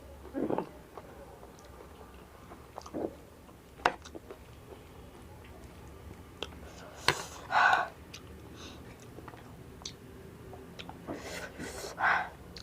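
Close-miked chewing and mouth sounds of someone eating spicy chatpate, a soft puffed-rice snack mix, with scattered small clicks and a few short, louder noises, the strongest about halfway through and near the end.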